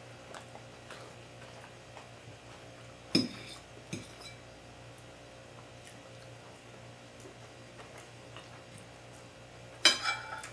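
A metal fork knocking and clinking against a ceramic dinner plate while cutting a breaded cutlet: one sharp clink about three seconds in, a lighter one just after, and a quick cluster of clinks near the end. Between them there is only a faint steady hum.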